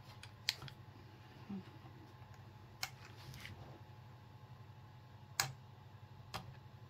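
Small sharp clicks and taps of a motherboard heatsink's squeeze-tab clips being worked loose with a tiny screwdriver: four clicks a second or more apart, with a soft knock between the first two.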